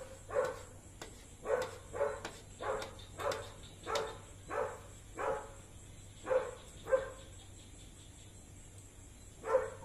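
A dog barking repeatedly in short single barks, about two a second. The barking pauses for a couple of seconds before one last bark near the end.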